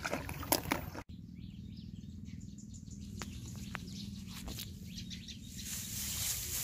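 Hands splashing and scooping in shallow muddy water for about a second. After a cut, a steady low outdoor rumble with a few faint ticks follows, and a rustling hiss of grass rises near the end.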